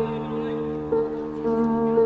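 Background music of sustained, held notes, the pitch shifting about a second in and again shortly after.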